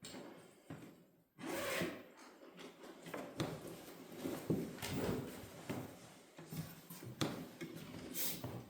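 Scattered knocks, clicks and rubbing of things being handled in a small room, with a brief gap just after a second in and the loudest knocks around the middle.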